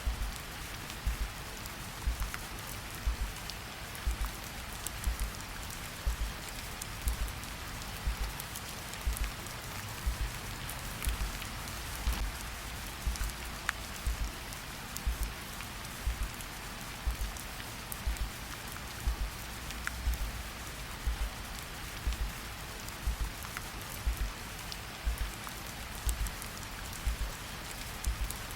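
Steady rain falling, layered with a slow heartbeat: a low double beat about once a second.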